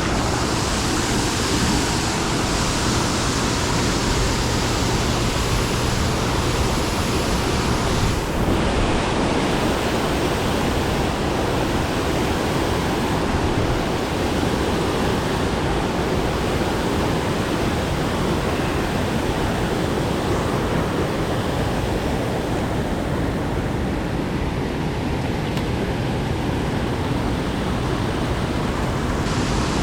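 Steady rushing of water, an even noise that holds at the same level throughout.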